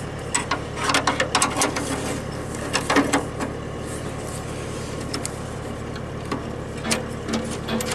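Sharp metallic clinks and taps of a wrench working the bolts of a tractor's steel body panel, in a quick cluster in the first two seconds, again about three seconds in, and a few near the end. Under them runs a steady low engine hum.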